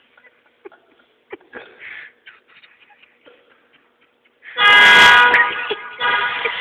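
Faint clicks and rustling, then about four and a half seconds in a car horn suddenly blares and stays on, dipping briefly near the end. It is set off by the ignition, which has been wired to the horn.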